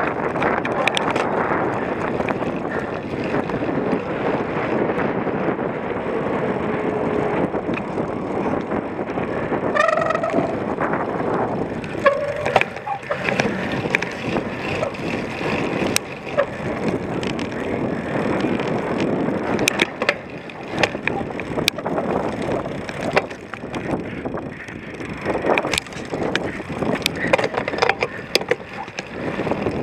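Cyclocross bike being ridden hard over rough ground: steady wind rush over the microphone with frequent sharp rattles and knocks from the bike. A brief pitched sound comes about ten seconds in.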